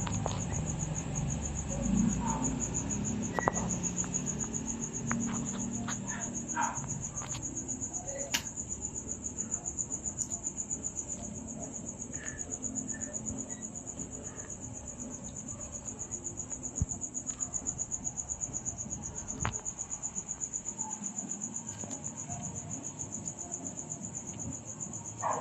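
Crickets chirping in a steady, fast trill throughout, with a few faint clicks and knocks beneath.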